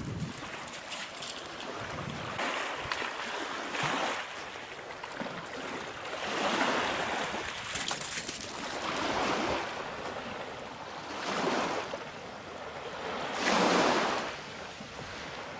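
Small waves washing onto a sand and gravel shore, the rushing wash swelling and fading every couple of seconds.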